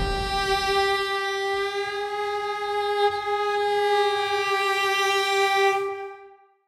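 Closing music: a single long held note on a bowed string instrument, steady in pitch with a bright, overtone-rich sound, fading out about six seconds in.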